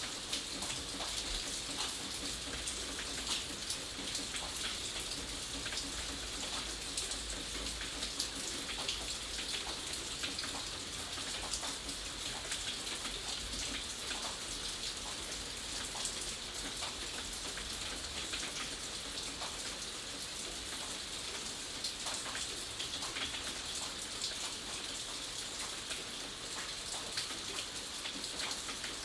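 Steady rain falling, with many individual drops pattering on a hard surface over an even hiss.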